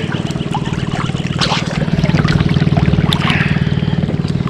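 Water sloshing and trickling around wading bodies and a net at the surface, over a steady low engine drone that runs without letting up.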